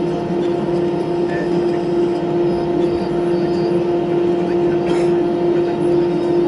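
Airbus A320 jet engines and airflow heard from inside the passenger cabin in flight: a loud, steady drone with a constant hum riding on it. A single faint click about five seconds in.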